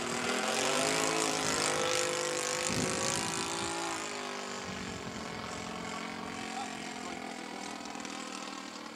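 Radio-controlled Spitfire model aircraft flying overhead, its engine and propeller note sliding down and up in pitch. It is loudest in the first few seconds, then fades as the plane draws away.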